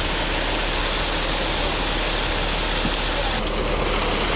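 Creek water rushing steadily over a riffle; its hiss shifts in tone about three and a half seconds in.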